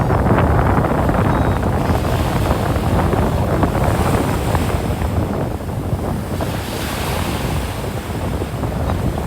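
Ocean surf breaking and washing on a sandy beach, a steady rush that swells and eases, with wind buffeting the microphone as a low rumble.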